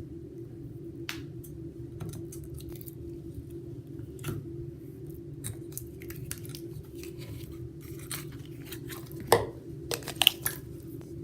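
Scattered small crackles and clicks from hands working clear putty and its plastic container, over a steady low hum. A few sharper clicks come about nine to ten seconds in.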